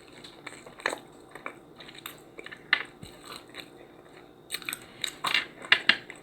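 Close-miked chewing and biting of crunchy food: scattered crisp crunches, coming thicker near the end.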